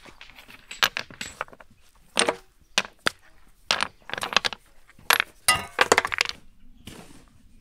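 Stones and a steel trowel clinking and knocking together, with some scraping, as mortar is worked and stones are laid: about a dozen sharp clinks at uneven intervals, a few ringing briefly.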